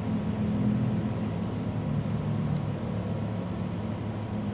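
Steady low machine hum, with a faint short tick about two and a half seconds in.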